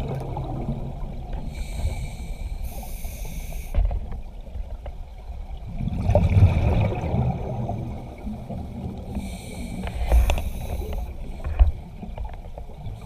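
Scuba diver breathing through a regulator underwater: a hissing inhale followed by a low rush of exhaled bubbles, twice.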